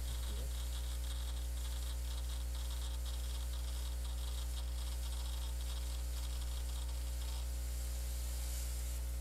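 Desktop computer running, its hard disk drives and fans giving a steady low hum with several steady tones over a faint even hiss.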